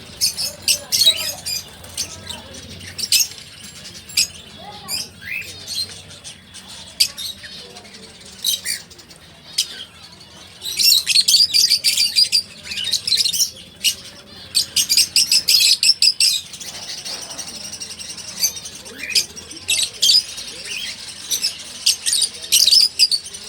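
Small cage birds chirping and squawking, short high calls coming in quick runs, with the densest chattering about halfway through.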